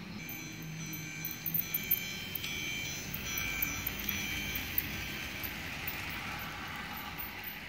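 Battery-powered toy train running past close by on plastic track, its motor and wheels whirring, the noise swelling and fading over the last few seconds. Over the first half, chime-like ringing tones hold steady, changing pitch a few times.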